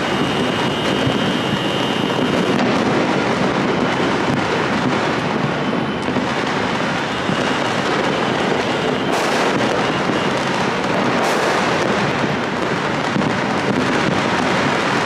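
A continuous din of many distant fireworks going off at once across a city, with two sharper bangs about nine and eleven seconds in.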